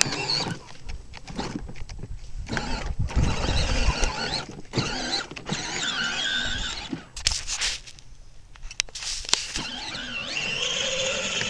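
Battery-powered Power Wheels toy ATV driving over bumpy dirt: its electric drive whines and squeals while the plastic wheels and body rattle and scrape, with frequent clicks and knocks throughout.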